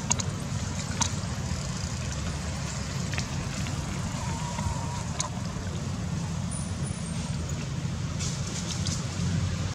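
Steady low outdoor rumble, with a few faint clicks and a brief faint wavering tone about four seconds in.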